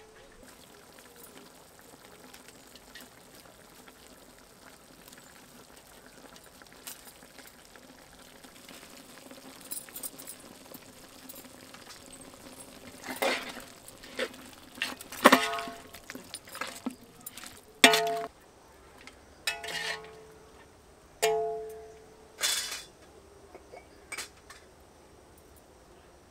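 Metal utensils clinking and knocking against a large aluminium cooking pot: a handful of sharp clinks in the second half, some ringing briefly.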